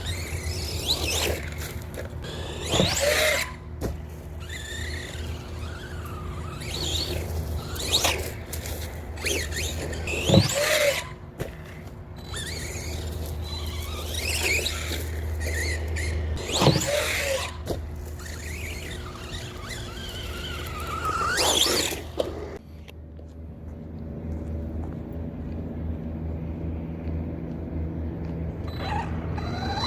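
ARRMA Typhon 3S brushless RC buggy driving: its motor whines up and down in pitch as it speeds up and slows, loudest in short spells about every few seconds. A steady low hum runs underneath.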